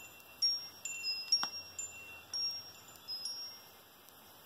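Wind chime ringing: about ten light metallic strikes at several different high pitches, each ringing on briefly, over about three seconds.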